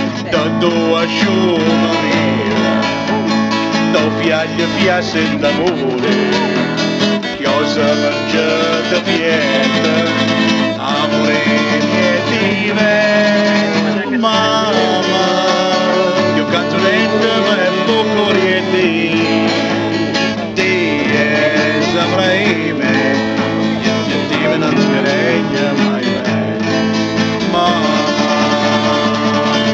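A man singing a folk song while strumming chords on an acoustic guitar.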